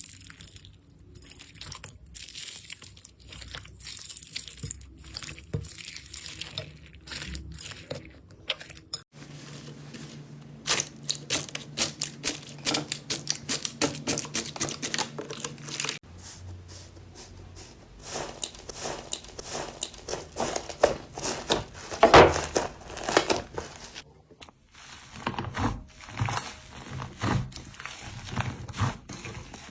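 Slime being squeezed and worked, making rapid crackling and clicking pops. The sound changes abruptly every seven or eight seconds as one clip gives way to the next.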